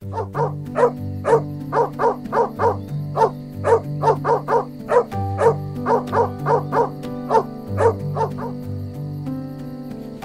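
Bull terrier barking in a rapid series of short barks, about two or three a second, stopping about eight and a half seconds in. Background music plays underneath.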